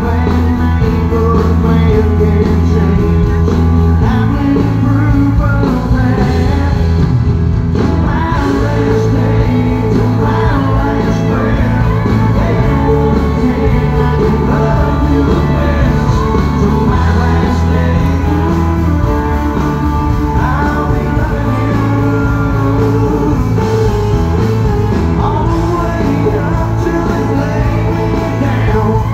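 Live country-rock band playing loudly through a concert sound system: electric guitars, bass and drums, with a man singing lead.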